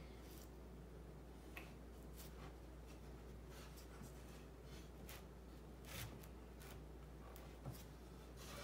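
Faint scrapes, rubs and light knocks of pine boards being shifted and held against each other on a workbench, a few scattered touches over a low steady hum.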